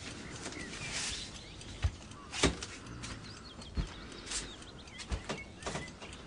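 Faint outdoor ambience with small birds chirping now and then, broken by about half a dozen sharp knocks or clicks spread through it.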